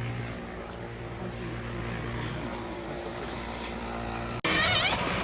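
A steady engine hum that cuts off suddenly about four and a half seconds in, giving way to a louder, noisier sound.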